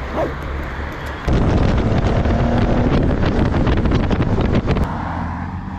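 Heavy wind rushing and buffeting over the microphone of a Honda Transalp 700 riding at speed, with its V-twin engine running underneath. The loud wind starts suddenly a little over a second in and cuts off suddenly near the end, with a quieter steady hum before and after it.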